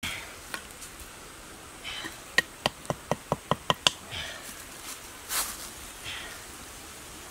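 A quick run of about eight sharp, hollow knocks, about five a second: a green bamboo tube hammering a stick into the ground.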